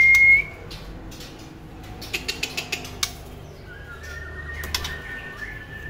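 Young white-rumped shama calling: a clear whistled note, rising then held, ends about half a second in. A quick run of about six sharp ticks comes around two seconds in, and a fainter, long, steady whistle sounds near the end.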